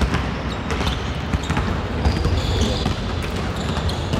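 Several basketballs bouncing on a gym floor at once as children dribble, an irregular, overlapping patter of thuds.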